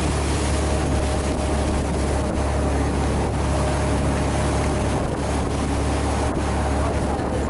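Charter fishing boat's engine running steadily with a low drone, mixed with wind buffeting the microphone and water noise.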